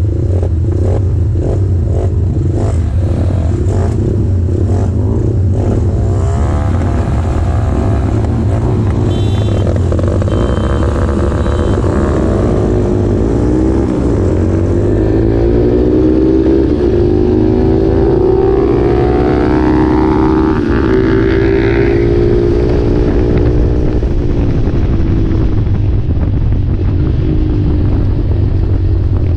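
Small track motorcycle engine running, ticking over at first and then, from about six seconds in, revving up and down again and again as the bike accelerates and shifts around the circuit, heard from the onboard camera.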